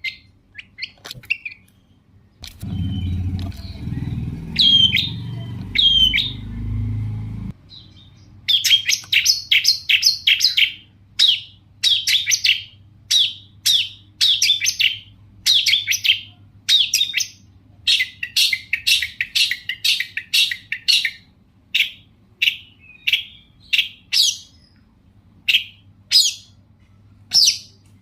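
Long-tailed shrike (cendet) singing: short, sharp, scratchy calls, with a fast run of them after a few seconds, then single calls repeated about once or twice a second. For about five seconds near the start a low rumbling noise runs under the calls.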